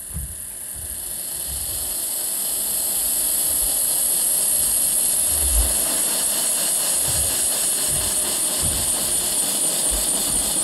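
A loud, hissing, engine-like roar in the dance soundtrack. It swells over the first few seconds, holds steady, then cuts off suddenly at the end, with a few low thuds beneath it.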